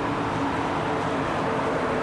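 Ex-Reichsbahn DB class 143 electric locomotive and its regional coaches rolling past, a steady rumble of wheels on rail with a steady hum.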